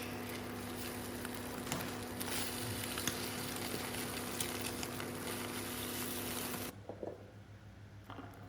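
Food sizzling in a pan with scattered crackles over a steady mechanical hum. It cuts off abruptly near the end, leaving a few soft taps.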